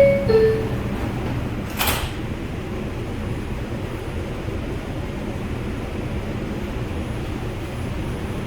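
R142 subway car's descending two-note door chime, then the sliding doors shut with a single thump about two seconds in, followed by the car's steady hum.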